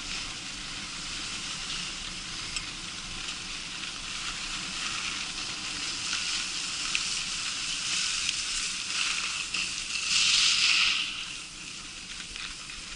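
Skis hissing and scraping over packed, groomed snow during a downhill run, with a louder stretch of scraping about ten seconds in that lasts about a second.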